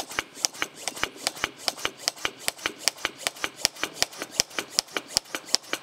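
Hand pump of a cooling-system pressure tester being worked in quick, even strokes, several a second, with a rasping, rubbing sound on each stroke. It is pumping air into the cooling system to bring it up to test pressure, about 15 PSI, to check for leaks.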